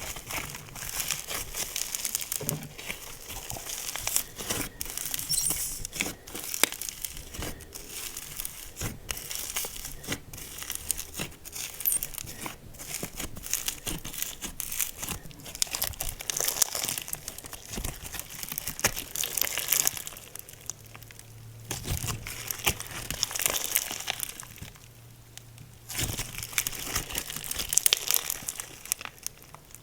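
Hands kneading and squishing slime close to the microphone: a dense run of small crackles and pops that eases off briefly about 25 seconds in.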